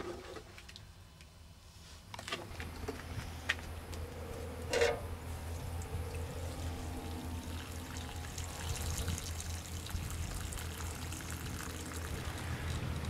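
Water pouring and trickling onto dried, cracked clay in a shallow dish, soaking it back into slip. A few light knocks come between about two and five seconds in, over a low steady hum.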